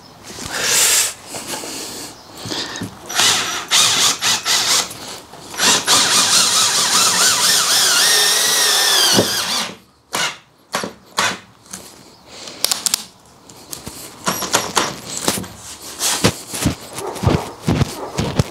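Cordless drill driving self-countersinking tech screws down through plywood flooring into the van floor. It runs in several short bursts, then one long run of about three and a half seconds with a rising whine that stops abruptly. Light knocks and clicks follow.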